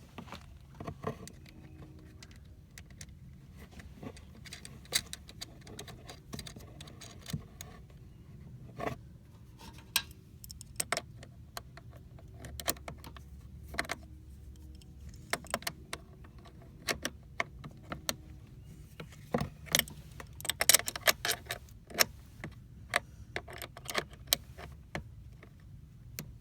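Small metal parts and a hand tool clinking and clicking irregularly as a battery disconnect switch is fitted onto the negative battery terminal, with a quick run of clicks about twenty seconds in.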